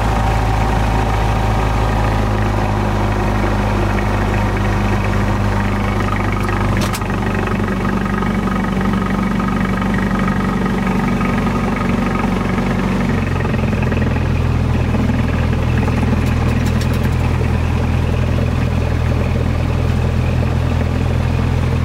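Cessna 172SP's four-cylinder Lycoming engine and propeller running loud and steady, heard from inside the cabin during the takeoff run; the engine note steps up in pitch about 13 seconds in.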